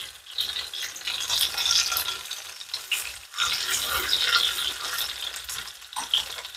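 Jalapeños, zucchini slices and tomatillos sizzling in olive oil in a skillet, with metal tongs clicking and scraping against the pan and the vegetables as they are turned.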